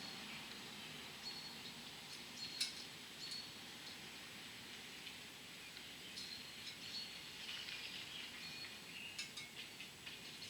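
Faint, scattered small metallic clicks and ticks from tiny valve keepers and a small screwdriver being worked into a compressed valve spring retainer. Short high chirps come in between the clicks.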